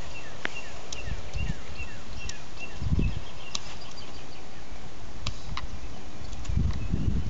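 A bird chirping repeatedly in short, high notes, with a few sharp clicks and some low thumps.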